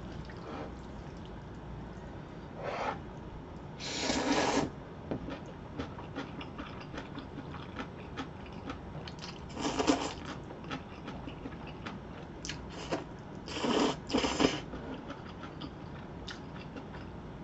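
Slurping jjajangmyeon (black bean sauce noodles) in several short bursts, with small clicks of chewing and chopsticks between them.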